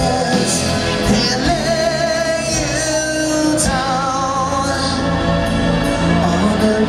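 A live rock band: a male lead singer holding long notes with vibrato over electric guitar, bass and drums.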